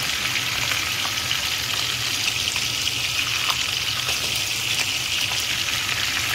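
Whole sardines frying in a pan of hot oil: a steady, dense sizzle with small scattered crackles. By the cook's rule, oil still sizzling like this means the fish is not yet cooked through.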